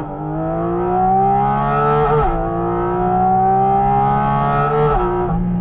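Porsche 718 Cayman GT4 RS's 4.0-litre naturally aspirated flat-six accelerating hard at high revs, its pitch climbing steadily in each gear. Two quick PDK upshifts, about two seconds in and again near the end, each drop the pitch sharply before it starts climbing again.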